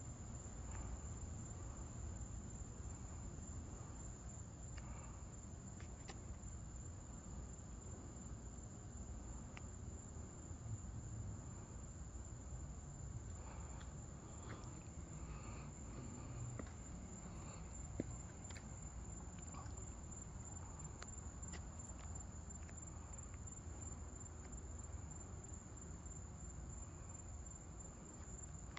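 Night insects calling in a steady, unbroken high-pitched drone over a low background rumble, with a few faint clicks and one sharp tick about eighteen seconds in.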